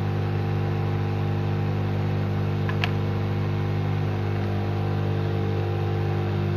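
Steady electrical hum with no change in pitch or level. About three seconds in comes one light click, the phone's plastic back cover snapping onto its frame as it is pressed down.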